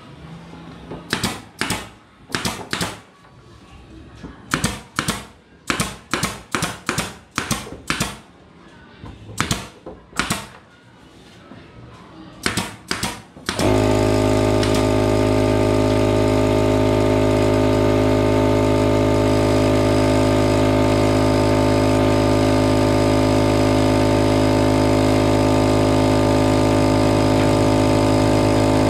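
Pneumatic nail gun driving nails into wooden boards: about two dozen sharp shots in quick groups of two to six. About fourteen seconds in, an air compressor starts and runs steadily with a hum, refilling its tank.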